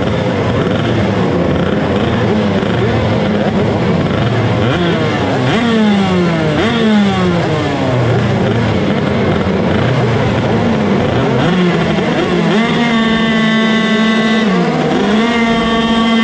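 Several two-stroke shifter kart engines blipping their throttles on the grid, pitches rising and falling over one another. From about twelve seconds in one engine is held at steady revs, dipping briefly near fifteen seconds.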